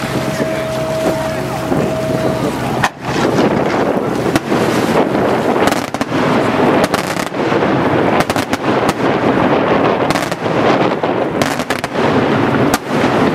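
Daytime aerial fireworks: from about three seconds in, a dense, rapid run of bangs and crackling reports as shells burst into many small smoke puffs. Before that there is wind on the microphone and a faint steady tone.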